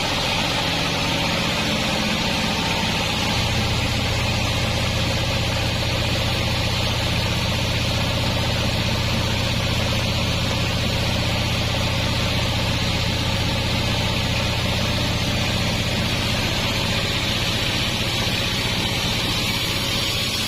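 Band sawmill running steadily: a low, even engine drone with a steady hiss over it, the drone growing stronger about three seconds in.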